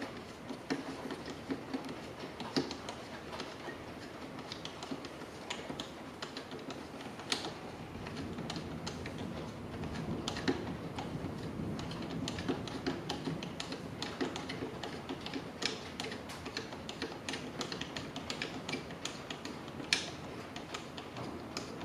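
Screwdriver working out the pistol grip screw of a GHK AK airsoft rifle: a run of small clicks and ticks, sparse at first and busier from about eight seconds in, with one sharper click near the end.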